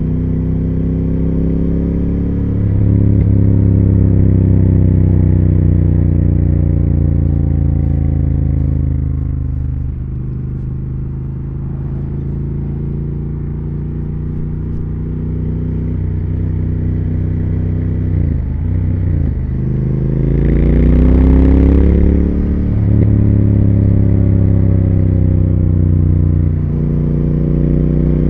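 Triumph Speed Twin 1200's parallel-twin engine and exhaust under way: the revs sink slowly for the first several seconds, then climb again, broken by short dips in pitch at gear changes. A brief rush of noise comes about two-thirds of the way through.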